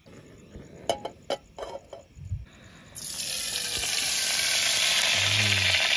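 A few light clicks and knocks of handling the cookware, then about halfway a sudden steady hiss of cooking on a portable gas canister stove as oil is poured into the pot.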